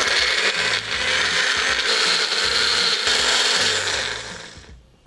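Small personal blender running, grinding chilies, red onion, garlic and turmeric into a spice paste. The motor starts at once, dips briefly about a second in, and winds down to a stop near the end.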